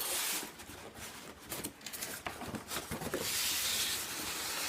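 Cardboard and plastic packaging of a boxed RC plane being handled and opened: rubbing and tearing noises with a few small clicks, a short burst at the start and a longer rub in the second half.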